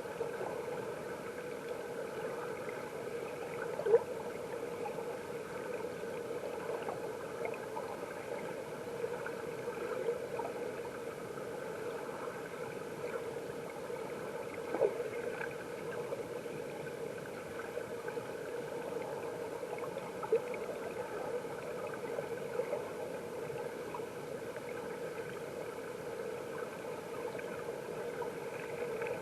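Mountain stream water heard through an underwater camera: a steady muffled rush, with a few sharp clicks or knocks, the loudest about four seconds in.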